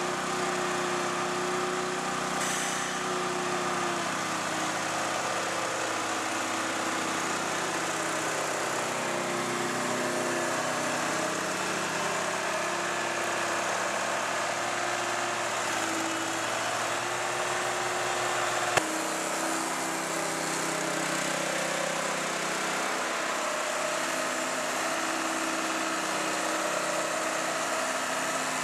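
The small engine and vacuum pump of a crane-mounted vacuum lifter run steadily, with a truck engine running alongside. The pitch shifts slightly now and then, and there is one sharp click about two-thirds of the way through.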